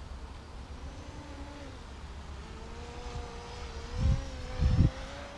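Electric RC model plane's motor and propeller running overhead: a steady pitched hum that rises slightly, over a low wind rumble on the microphone. Two loud low thumps come about four seconds in and half a second later.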